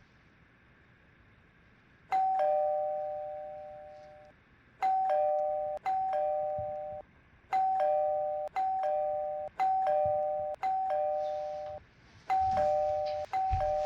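Two-note "ding-dong" doorbell chime rung over and over, about nine times: the first chime is left to fade out, then the button is pressed again and again about once a second, impatiently.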